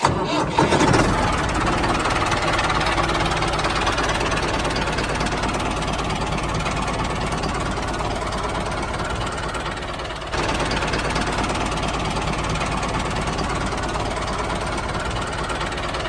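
Diesel tractor engine running steadily with a knocking chug. It breaks off briefly about ten seconds in and picks up again.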